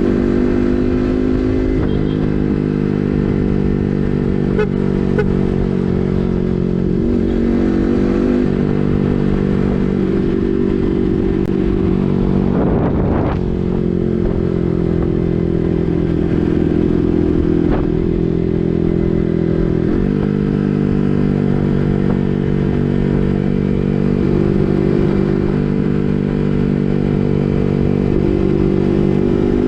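Yamaha MT-15's single-cylinder engine running through an SC Project full-system exhaust while riding, holding a steady note with a few changes in engine pitch, the biggest about halfway through.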